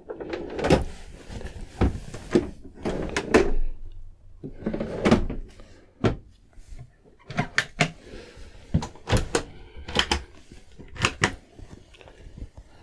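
Soft-close kitchen drawers of a Hobby 540 UL De Luxe caravan being pulled open and pushed shut one after another: runners sliding, with a string of knocks and clicks about once a second as the fronts close.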